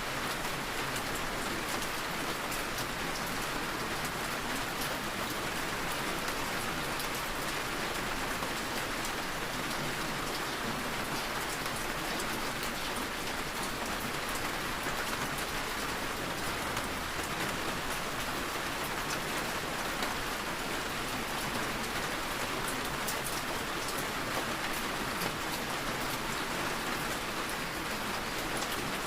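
Steady rain falling, an even hiss with a dense patter of individual drops, unchanging throughout.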